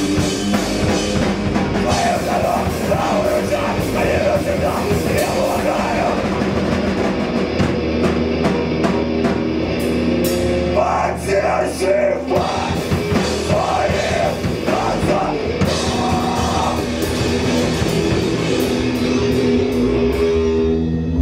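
Live rock band playing loud and without a break: a drum kit and an electric guitar.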